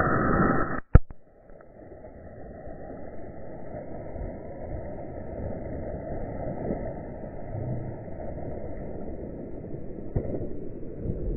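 Water splashing and churning as a tiger bounds through a shallow river. About a second in there is a sharp click and the sound drops to a quieter rushing splash, which grows louder again near the end.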